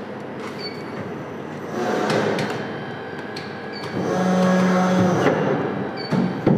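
Injection moulding machine running with its motor on. The pump's note swells as the mould is opened and closed in manual mode: briefly about two seconds in, then as a strong steady hum from about four to five seconds. Sharp clicks recur every few seconds, and there are two knocks near the end.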